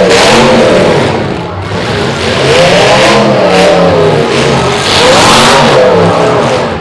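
Demolition derby car engine revving hard, its pitch rising and falling about three times as the car spins its wheels on the wet track.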